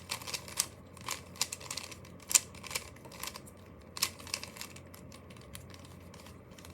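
Plastic clicks of a Rubik's cube's layers being turned in quick, irregular moves, thinning out in the last two seconds.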